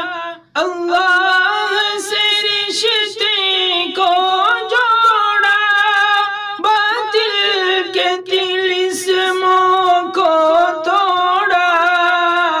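A man singing an Urdu naat unaccompanied, drawing out a long, ornamented melodic run without distinct words in a fairly high voice. There is a brief break for breath about half a second in.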